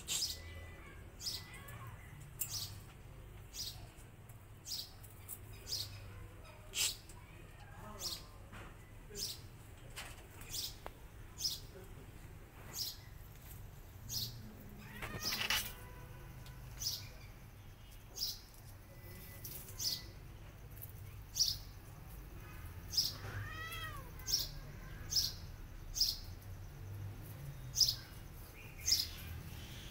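A kitten meows twice, a long falling call about halfway and another a few seconds later. Under it, caged lovebirds give short, high chirps about every second.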